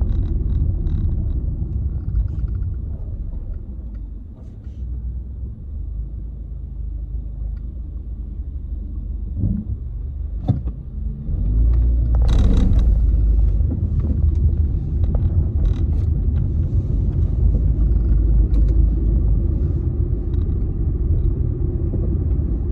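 Steady low rumble of a car's engine and tyres on the road, heard from inside the moving car; it grows louder about halfway through, with a brief brighter sound as it rises.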